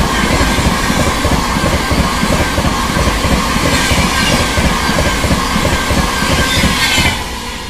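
Tejas Rajdhani Express's LHB coaches passing at speed, a loud rumble with rapid clatter of wheels on rail. The end of the train goes by about seven seconds in, and the noise falls away.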